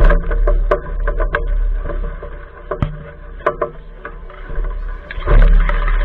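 Heavy low rumble and scattered knocks and scrapes of a jostled action camera as an Alaskan malamute pushes through brush and leaf litter. A louder rush of splashing comes near the end as the dog wades into muddy water.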